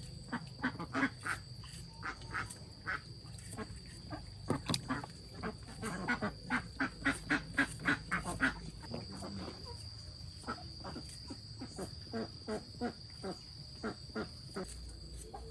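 Poultry calling in a long run of short, repeated calls, densest around the middle, over a steady high-pitched insect whine.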